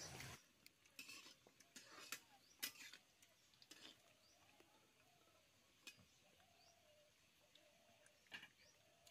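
Faint, sparse clicks and scrapes of fingers against steel plates as rice is mixed and eaten by hand, mostly in the first few seconds. A dove coos faintly in the second half.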